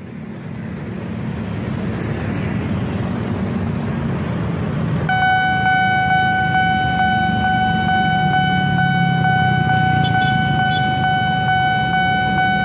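Car and motorbike traffic running past at a railway level crossing; about five seconds in, the crossing's warning alarm starts suddenly, a steady high tone that holds on over the engines.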